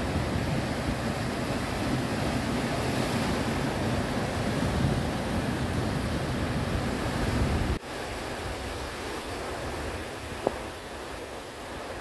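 Sea surf breaking and washing over shoreline rocks, a steady rushing with wind rumbling on the microphone. The low rumble drops off abruptly about two-thirds of the way through, and a brief short sound pops up near the end.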